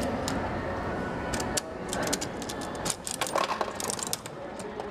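Coin-operated toy vending machine's crank being turned, a quick run of ratcheting mechanical clicks lasting a few seconds.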